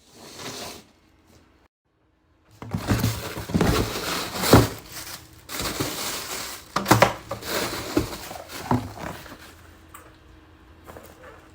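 Irregular scraping and crunching, with a few sharp knocks about four and a half, seven and nine seconds in.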